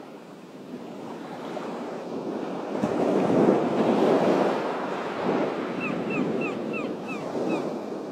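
Ocean surf breaking on a beach, swelling to its loudest about three to four seconds in and then easing. Near the end a quick run of about seven short high chirps sounds over the surf.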